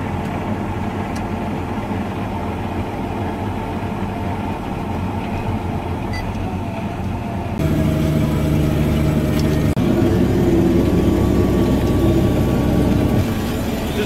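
Large tractor's diesel engine running steadily under load while it pulls a harrow bar. About halfway through, it turns louder, with a steady low drone as heard inside the cab.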